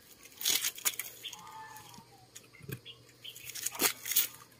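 Handling noise from the timing-chain cap of a Yamaha Mio Sporty scooter engine being wiggled loose by hand after its screws are out: scattered sharp clicks and scrapes, a cluster about half a second in and several more near the end.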